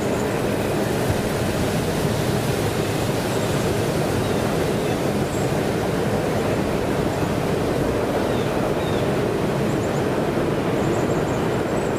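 Train rolling past: a steady rumble of wheels on the rails.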